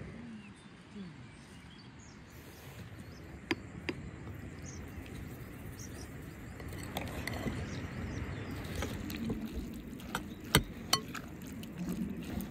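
Quiet outdoor ambience, then a metal spoon clinking against a glass bowl as a chopped vegetable salad is stirred, with a few sharp clicks near the end.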